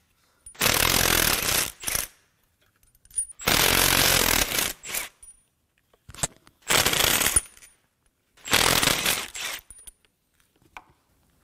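Power tool run in four short bursts of about a second each, spinning spark plugs out of the cylinder head.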